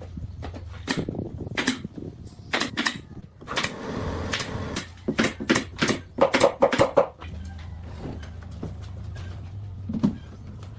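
A series of irregular knocks and clattering strikes, thickest in the middle, over a low steady hum.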